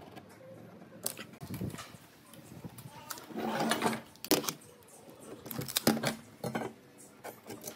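Handling noise on a wooden workbench: a handful of sharp knocks as blocks of reclaimed timber and tools are set down and moved, the loudest about four and six seconds in.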